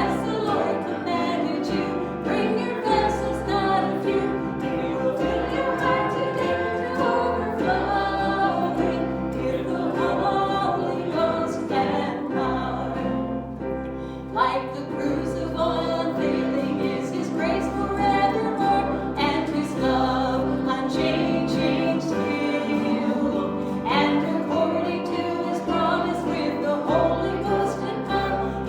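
A church congregation singing a worship song together over instrumental accompaniment, with sustained bass notes underneath.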